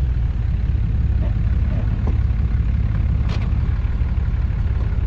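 Vehicle engine idling with a steady low rumble, and a short click about three seconds in.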